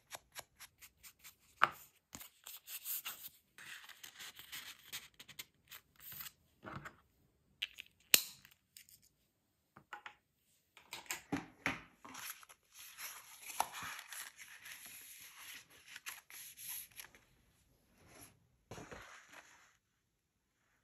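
Paper and craft tools being handled on a work surface: rustling, scraping and scratching with many small sharp clicks, and one loud tap about eight seconds in.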